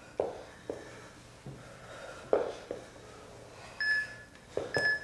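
Workout interval timer beeping twice near the end, one short high beep a second, counting down the last seconds of the exercise interval. Under it, short puffs of breath from people doing crunches on a mat, the strongest about midway.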